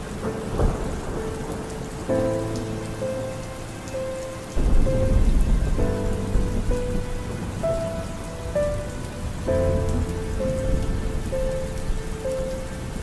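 Steady rain falling on a window, with a low rumble of thunder about five seconds in. Soft music with long held notes plays over it.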